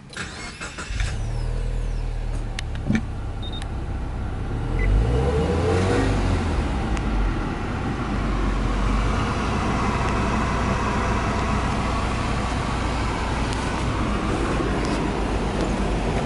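Subaru Legacy B4 2.0GT spec.B's EJ20 turbocharged flat-four cranking and catching about a second in, then idling. Engine speed rises briefly about five seconds in and settles back to a steady idle near 1,000 rpm, heard from inside the cabin.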